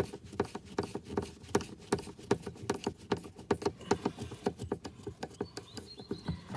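A screwdriver working out the fixings of a car's plastic boot trim: a quick, uneven run of small clicks and scratches, about four or five a second.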